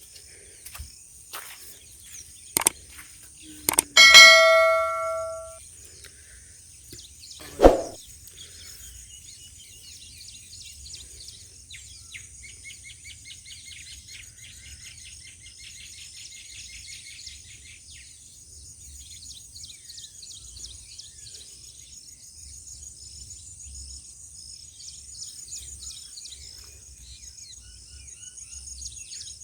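A steady high insect drone with birds chirping and trilling. About four seconds in, something metal is struck once with a clang that rings and fades over about a second and a half. A few sharp knocks come before it, and a louder knock a few seconds after.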